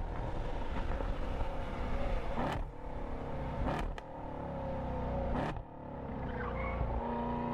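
Car engine revving hard under acceleration, its pitch broken by three sharp cracks with brief dips, as at gear changes.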